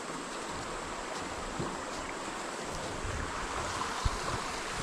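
Steady rush of flowing river water, with a few low thumps and a single sharp knock about four seconds in.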